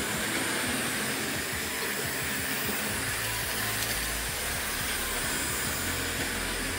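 Hornby 00-gauge Smokey Joe electric model locomotive running past close by, its small motor and metal wheels on the track making a steady rushing rattle, with quiet background music underneath.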